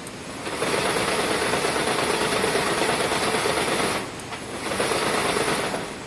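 Wire harness braiding machine running, its bobbin carriers clattering round the track. It starts about half a second in, drops out briefly around four seconds, starts again and stops near the end.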